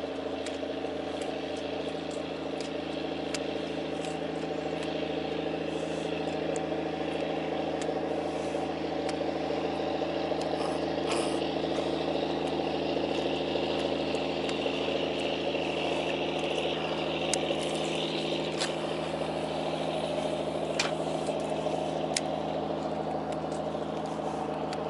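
A boat engine idling steadily: a constant low hum made of several unchanging tones. A few sharp ticks are scattered through it.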